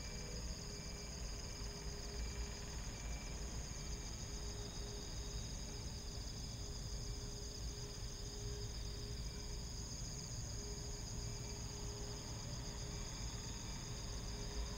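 Insects chirring in a steady, rapidly pulsing high chorus, over a low even rumble.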